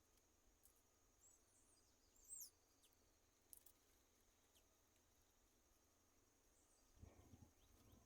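Faint, scattered high bird chirps, short quick notes clustered a couple of seconds in, over a steady high insect trill. A low rustle or knock near the end.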